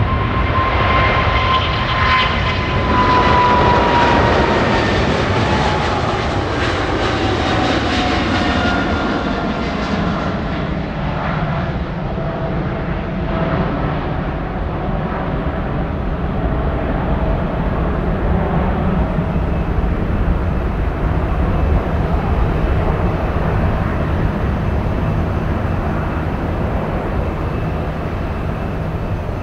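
Jet airliner passing close by: the loud engine noise carries a whine that slowly falls in pitch as the aircraft goes past. After about ten seconds the high end fades and a steady low rumble carries on as it moves away.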